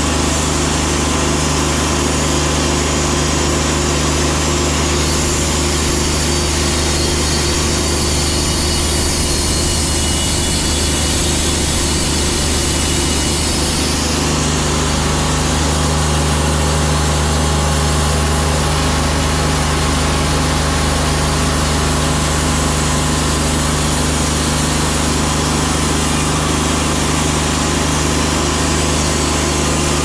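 Wood-Mizer LT50 portable band sawmill running steadily, its engine and band blade droning as the saw head travels along the log. The engine note shifts about halfway through.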